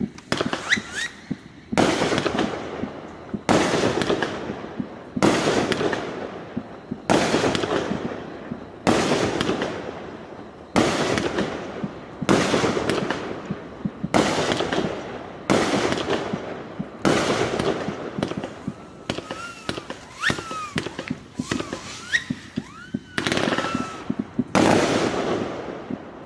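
A 34-shot consumer fireworks cake firing shot after shot, about one every 1.7 seconds, each a sharp bang followed by a fading tail. A few shots, near the start and again later on, carry thin rising whistles.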